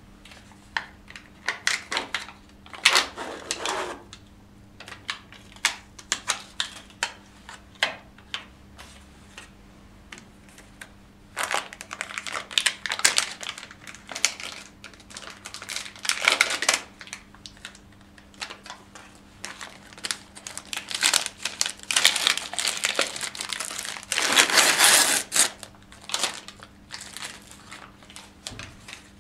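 Plastic sterile packaging of cannulation equipment being handled and peeled open, crinkling in several bursts, with many scattered clicks and taps as items are set down in a plastic tray.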